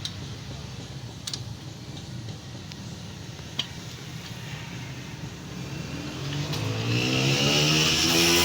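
An engine revving up, rising in pitch and getting louder from about six seconds in, over a steady low hum with a couple of sharp clicks.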